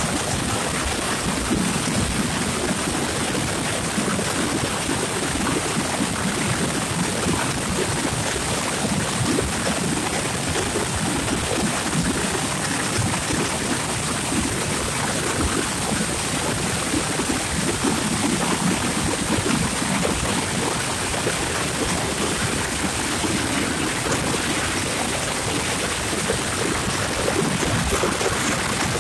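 Steady rushing wind and road noise from a moving vehicle, buffeting on the microphone.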